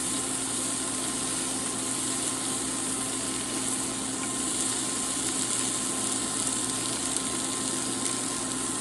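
Soy-sauce-marinated beef and mushrooms frying in a pan, a steady sizzle with a low steady hum underneath.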